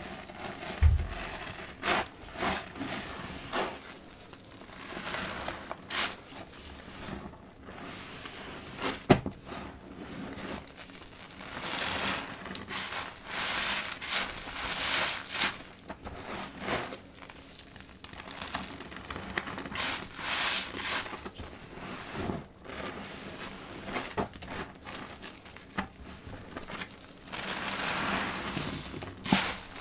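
Soap-soaked sponges squeezed and pressed in a basin of liquid-soap foam: wet squelching and crackling of bubbles in repeated swells, each a second or two long, with a few sharp clicks.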